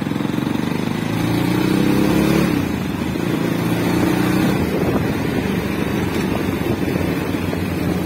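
Motorbike engine running under way, its pitch rising as it speeds up between about one and two and a half seconds in, over steady road and wind noise.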